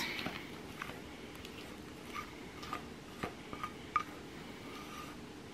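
Thick chocolate cake batter tipped from a bowl into a metal baking pan: a quiet stretch with scattered light clicks and a few short, faint ringing taps, spaced irregularly.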